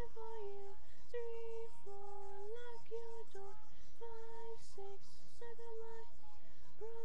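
A girl's voice carrying a simple wordless melody in held notes that step up and down, repeating a short phrase, with no backing music.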